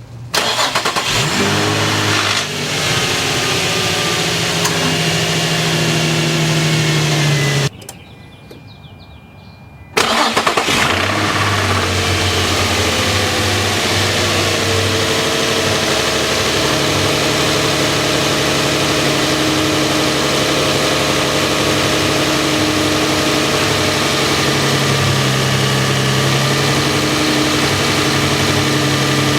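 2005 Infiniti G35 coupe's VQ35DE V6 cranking and starting with a clanking, grinding noise, running for about seven seconds, then stopping. About ten seconds in it starts again and settles into a steady idle. The startup clank is a fault the dealer has not yet found.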